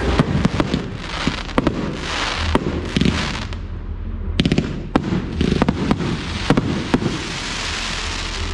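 Fireworks display: aerial shells bursting with sharp bangs at irregular intervals, several in quick clusters, over a continuous hissing crackle.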